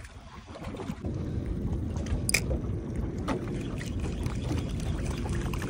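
Boat motor running low and steady, mixed with wind on the microphone, with a few short sharp clicks about two and three seconds in.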